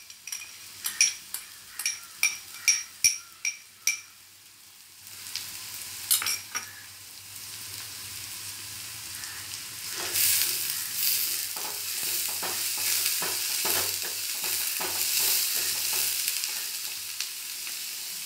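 Chopped onion tipped into a pan of hot coconut oil, with a run of sharp clicks as a spoon knocks it out of a glass bowl. The onion then sizzles in the oil, frying louder from about ten seconds in as a wooden spatula stirs and scrapes it around the pan.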